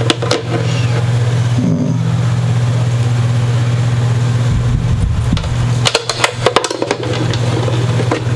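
Clicks, taps and knocks from handling a guitar's new pickguard as it is set in place, over a steady low hum. There is a short low rumble around the middle, and the clicks cluster in the last few seconds.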